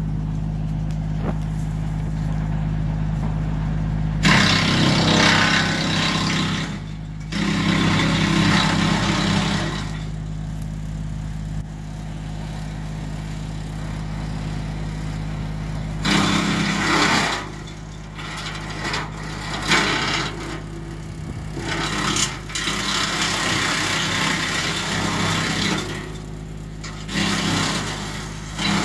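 Tractor-driven Titan BX42 PTO wood chipper running steadily, with several rough bursts of a few seconds each as brush and branches are fed through and chipped.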